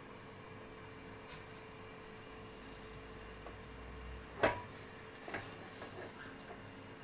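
Faint steady hiss of a lit gas burner under a small pan of heating oil, with a few light clicks and knocks from handling the cookware, the loudest a little past halfway.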